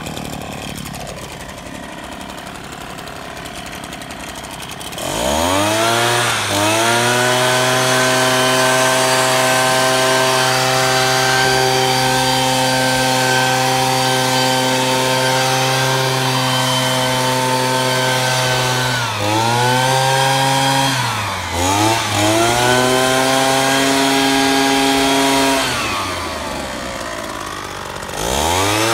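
Shindaiwa EB240 handheld two-stroke engine blower idling, then revving up about five seconds in and holding a steady high pitch at full throttle. Later the throttle is eased off and reopened a few times, falling back toward idle before revving up again near the end.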